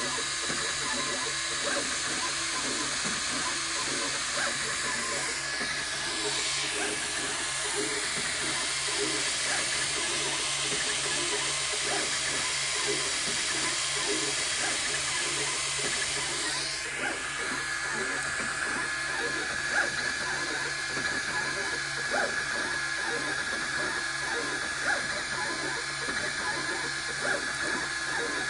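MakerBot 3D printer running a print: stepper motors chattering and whirring in quick, irregular ticks over a steady hiss. A high tone sweeps in pitch about six seconds in and again near seventeen seconds.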